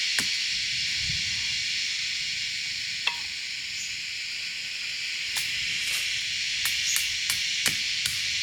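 Hammering on wood: a couple of sharp knocks at the start, a pause of a few seconds with a single knock, then a run of knocks resuming at about two a second, over a steady high hiss.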